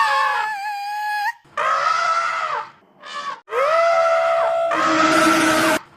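Elephant trumpeting: a run of four or five separate calls, each about a second long and held on a fairly steady pitch, the last one rougher.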